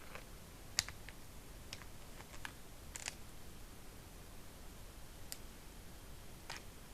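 Scattered light clicks and knocks, about ten of them at uneven intervals with the sharpest about a second in, over a faint steady hiss: the antlers of two roe deer bucks knocking together as they spar.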